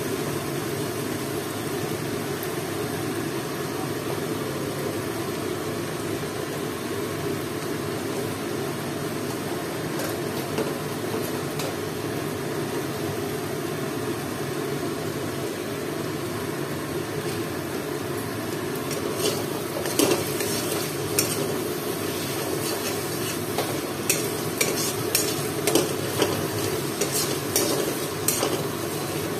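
Onion and ginger-garlic masala sizzling steadily as it fries in a metal kadai with turmeric going in. From about two-thirds of the way through, a flat metal spatula clicks and scrapes against the pan as the masala is stirred.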